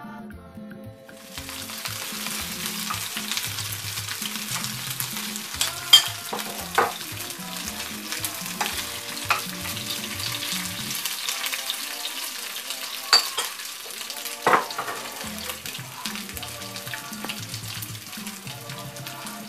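Small dried anchovies (Keta school boys) frying in hot oil in a pan: a steady sizzle that starts about a second in, while a metal spoon stirs them, with a few sharp clicks. Faint background music plays underneath.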